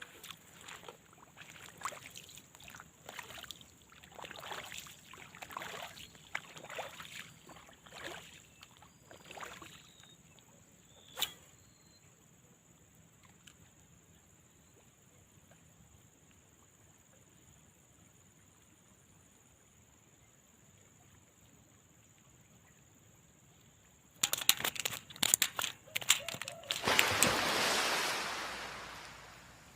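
Water sloshing and splashing in short strokes for the first ten seconds, with a sharp click about eleven seconds in. Near the end come a burst of knocks and a loud rush of water that fades away.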